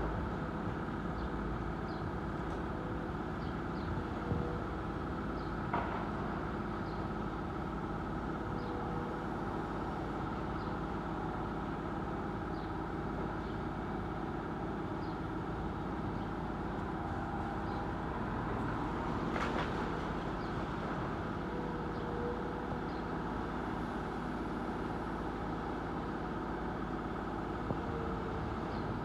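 An engine running steadily, with a few short knocks at scattered moments.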